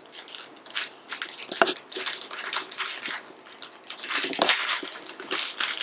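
Packaging being handled, crinkling and rustling in irregular crackles.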